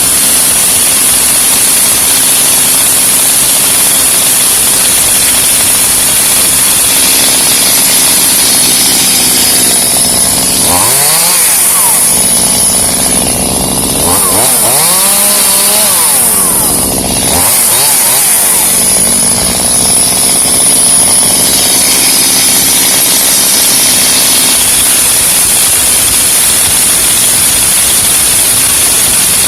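Gas chainsaw running steadily, with the engine revving up and back down twice near the middle.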